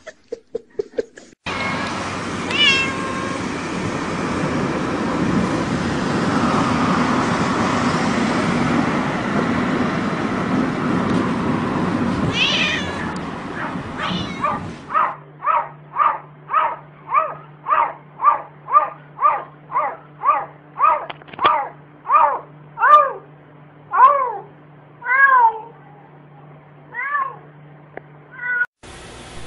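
Domestic cat meowing in a rapid run of short, repeated calls, about two a second, over a low steady hum. Before that comes a loud, noisy stretch with only a few meows in it.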